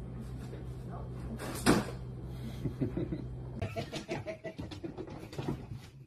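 Door and mail-slot flap knocking and rattling as a cat leaps at mail stuck in the slot, over a steady low hum. One sharp knock, about a second and a half in, is louder than the rest. After that come a few short voice sounds.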